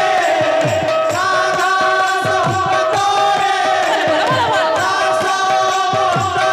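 Kirtan music: a two-headed barrel drum (mridanga/khol) beaten in a steady rhythm, its deep strokes dropping in pitch a little more than once a second, under sustained melody and singing voices.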